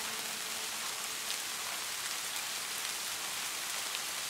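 Steady rain: an even hiss with faint, scattered drop ticks.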